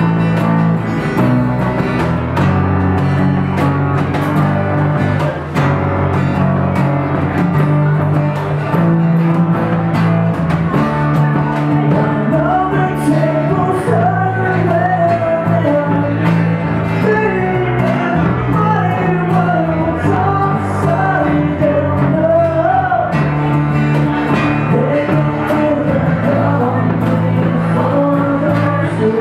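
Live acoustic pop-punk band playing: strummed acoustic guitars over a steady drum beat, with a lead vocal melody coming in about twelve seconds in.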